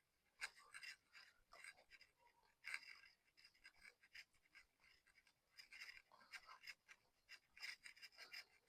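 Cloth wiping and rubbing a motorcycle drive chain clean: faint, irregular scratchy strokes that come in clusters.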